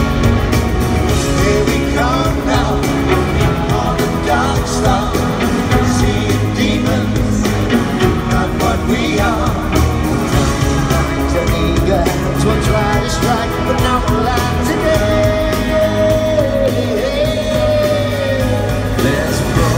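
Live pop-rock band playing in an arena, a male lead singer over drums, bass and keyboards. From about three-quarters of the way through, a long high note is held and then bends down.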